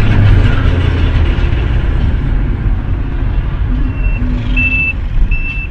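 Steady low rumble of a vehicle's engine and road noise picked up by a dashcam. About two-thirds of the way in, a high electronic beep starts, repeating about every three-quarters of a second.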